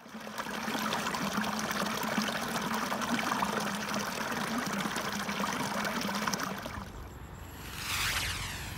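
A shallow stream trickling and splashing over rocks, as a steady run of water noise. It cuts off suddenly near the end, giving way to a low outdoor rumble and a brief falling sweep of sound.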